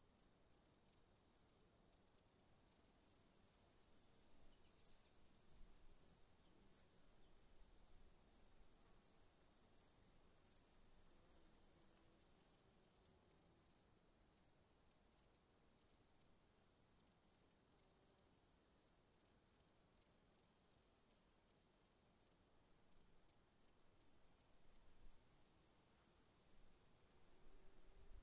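Crickets chirping in an even, steady rhythm of short high chirps, about two to three a second, over a faint steady high insect hiss.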